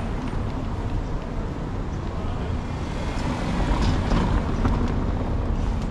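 City street traffic noise: a steady low rumble of cars on a cobbled street, with a few light clicks near four seconds in.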